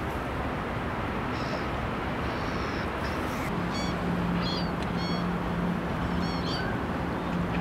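Outdoor waterside ambience: a steady background hiss, with short high chirping bird calls repeating several times from a little over a second in. A low steady hum joins about halfway through.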